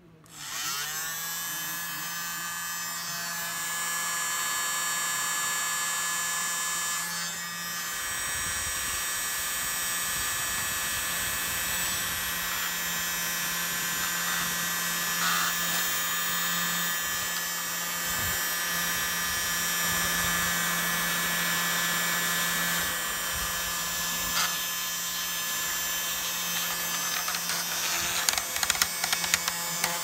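Small USB-powered handheld blower, a keyboard cleaner, switched on about half a second in: its motor whines up to speed within a second and then runs steadily. Near the end there is a run of light clicks.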